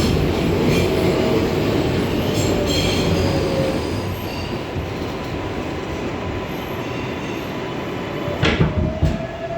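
R142A subway train slowing into a station: wheels squeal in high tones and the motors' whine falls in pitch over the first few seconds, and the running noise eases off. A few sharp knocks come near the end as the train comes to a stop.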